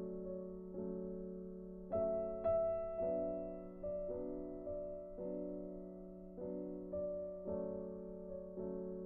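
Soft background piano music: gentle chords struck roughly every half second to a second and left to ring and fade.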